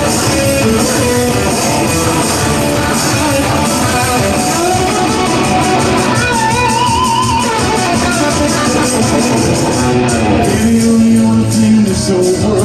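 Live rock music in a passage without lyrics, led by electric guitar, with one held, wavering note about halfway through.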